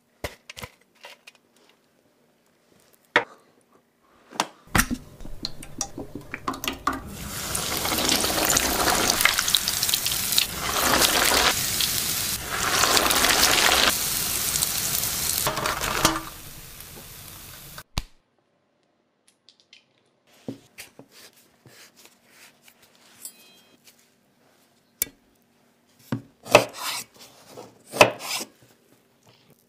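A panko-breaded cutlet deep-frying in hot oil: a loud sizzle builds from about five seconds in, fades and stops abruptly. Near the end, a few sharp cuts as a knife goes through an avocado onto a wooden cutting board.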